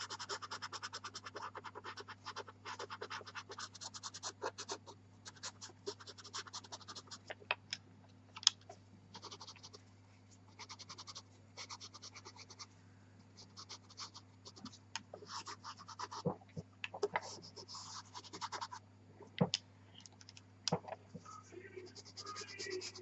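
Pastel pencil strokes scratching on black velour pastel paper, in quick runs of short strokes broken by pauses. A faint steady low hum runs underneath.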